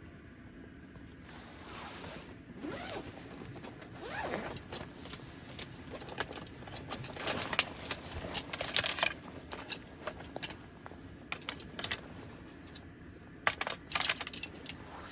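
Handling noises: a run of small clinks, clicks and rustling scrapes, busiest a little past the middle, with another short cluster near the end.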